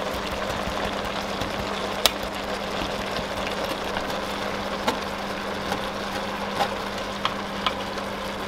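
A metal spoon working fermented anchovy paste in a fine-mesh steel sieve over a pot of stew, with a few light clicks of spoon on mesh, over a steady hum and hiss.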